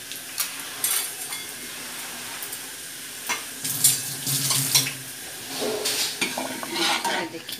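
A metal ladle knocks and scrapes against the inside of a pressure cooker as cooked lentils for sambar are stirred, making irregular clinks over a steady hiss. The clinks are busiest in the second half.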